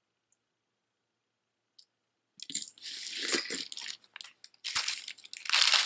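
Jewelry being handled and unwrapped: irregular crinkling and rustling of packaging, starting about two and a half seconds in.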